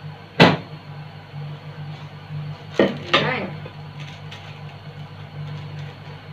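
A microwave oven door shut with a sharp clack about half a second in, then a plate set down on a countertop with a clatter a little before the middle, over a steady low hum.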